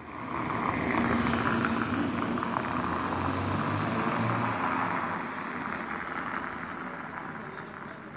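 A vehicle passing by, its road noise swelling in the first second, holding for a few seconds, then slowly fading away.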